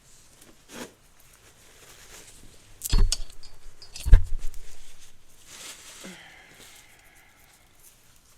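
A deck of tarot cards being handled and shuffled, with rustling and clicking of the cards and two loud thumps about a second apart near the middle, as the deck is knocked against the table or the microphone is bumped.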